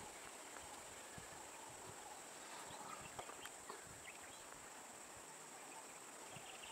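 Quiet outdoor ambience: a thin, steady, high-pitched insect drone from the roadside forest, with a few faint scattered clicks.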